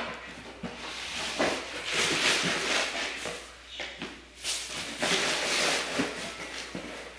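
Crumpled brown packing paper rustling and crinkling as it is handled, in uneven bursts.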